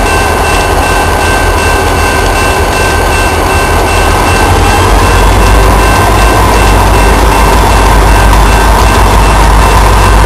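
Paducah & Louisville Railway freight train with diesel locomotives running past as a loud, steady rumble, growing a little louder about four seconds in.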